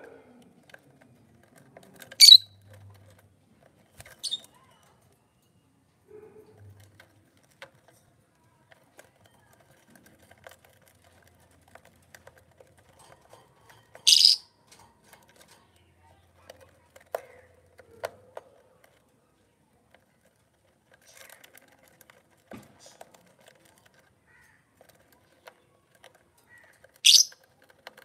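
Lovebirds giving sharp, high-pitched single shrieks: three loud calls roughly twelve seconds apart and a weaker one about four seconds in. Between the calls there are faint scattered clicks and scratches as the birds peck at a wooden nest box.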